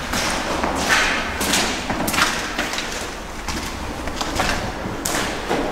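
Footsteps on the dirt-covered floor of a tunnel, about two steps a second, thinning out briefly partway through.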